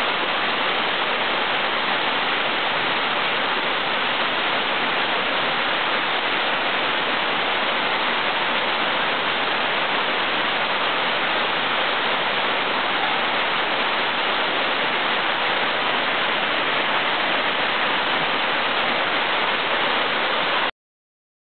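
Hareshaw Linn waterfall falling into its plunge pool: a steady, unbroken rush of water that cuts off suddenly near the end.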